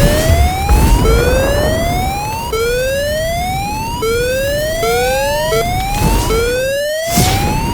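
Mock emergency-alert siren: an alarm tone with many overtones that rises in pitch, drops back and rises again about every one and a half seconds, over a rumbling, crackling fire sound effect.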